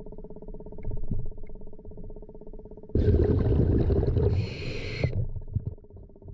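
Underwater recording of a steady mechanical hum with a fast flutter. About three seconds in, a scuba diver's breathing cuts in: a loud gurgling rush of bubbles for about two seconds, with a short hiss near its end, before the hum returns alone.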